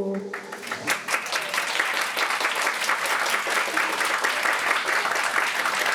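Crowd of guests applauding: dense, steady clapping that swells in within the first second and keeps up evenly.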